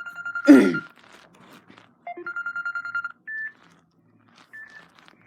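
Samsung Galaxy S9 smartphone sounding short electronic tones as its ringtone list is browsed. A pulsing steady tone runs for about a second, with a loud knock about half a second in. About two seconds in, a short low beep leads into another second of the pulsing tone, followed by two short higher beeps.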